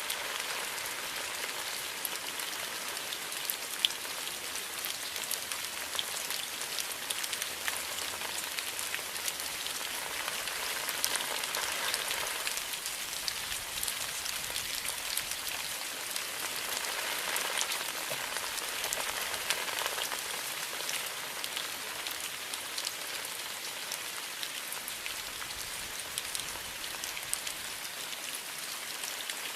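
Steady rain falling through a bamboo grove: an even hiss scattered with many sharp ticks of single drops, swelling slightly midway.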